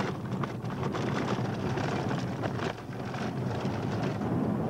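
A vehicle's engine runs with a steady low rumble while wind buffets the microphone.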